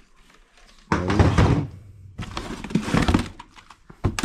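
Objects being handled and set down while unpacking a cardboard box: a heavy thunk about a second in, more knocking and rustling a little later, and a few sharp clicks near the end.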